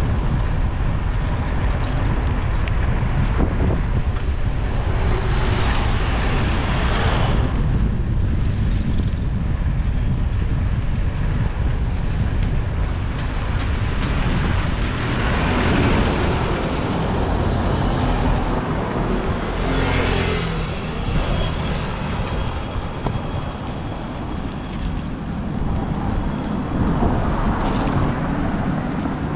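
Road traffic: a constant low rumble with vehicles passing close by, each rising and fading. Passes come at about six, sixteen and twenty seconds in.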